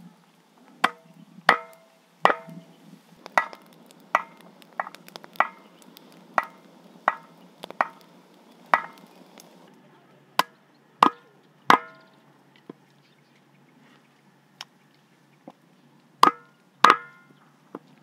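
Kitchen knife chopping raw meat on a wooden cutting board: sharp chops about one a second, some with a short ringing, a few lighter taps in a lull, then two hard chops near the end.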